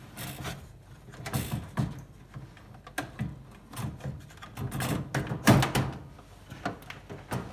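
A gas boiler's control box being slid back into its housing in the metal boiler casing: scraping and a string of knocks and clicks, the loudest about five and a half seconds in.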